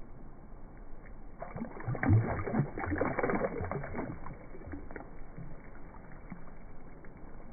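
Water splashing in shallow water as a released fish kicks free of the hand, a run of quick irregular splashes lasting a few seconds, loudest near the start.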